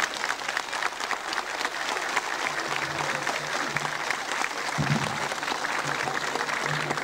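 Audience applauding, a dense, steady clatter of hand claps that thins out near the end.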